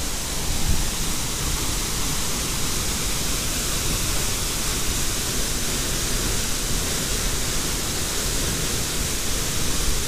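Waterfall's steady rush of falling water pouring into its white-water plunge pool.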